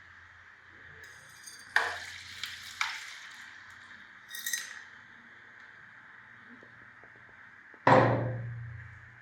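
Small metal parts clinking and knocking on a hard surface: two sharp clinks about two seconds in, a brief ringing scrape about halfway, and a louder knock near the end that rings away.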